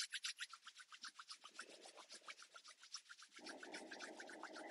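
Palms of two hands rubbed briskly together, a faint, even swishing of about eight or nine strokes a second. A soft steady rush joins for the last second or so.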